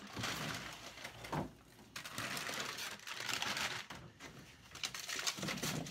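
Rummaging through a chest freezer: plastic bags of frozen chickens crinkling and rustling against each other and the wire basket, on and off with short pauses.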